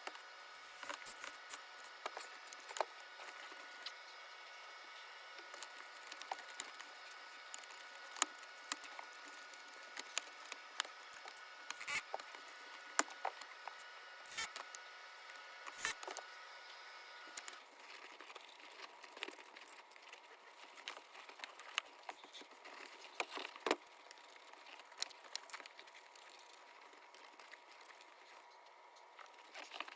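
Scattered light clicks, taps and small rattles of hard parts being handled, over a faint steady tone.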